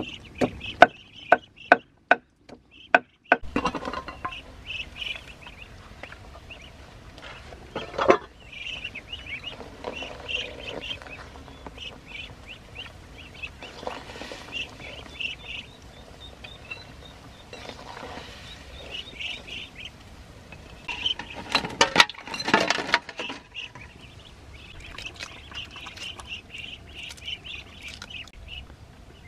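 Ducklings peeping over and over in short high calls. In the first three seconds a cleaver chops greens on a wooden block, about seven sharp chops, and there are two louder noisy stretches later, about eight seconds in and around twenty-two seconds.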